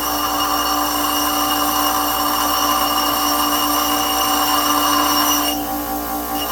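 Power grinder running with a steady ringing whine while grinding metal off a small replacement door-latch part. The grinding noise eases off near the end, leaving the tool's whine.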